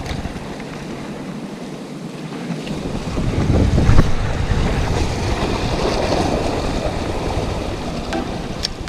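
Sea surf washing against rocks, with wind buffeting the microphone; the noise swells louder about four seconds in.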